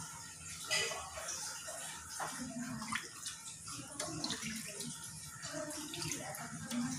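Thin yellow gulai broth sloshing in a nonstick frying pan as a spoon stirs yellow spice paste into it, with small irregular scrapes and clinks of the spoon against the pan.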